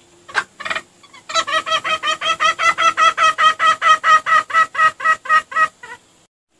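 Junglefowl lure recording: two short sharp calls, then a fast, even run of clucking notes, about seven a second, lasting some four seconds before it stops abruptly.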